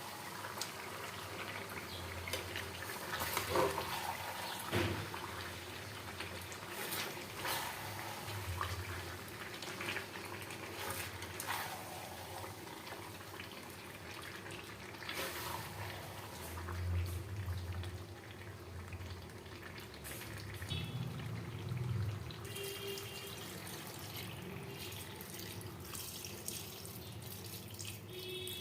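Kitchen sounds during cooking: a steady hiss with scattered clicks and knocks of utensils.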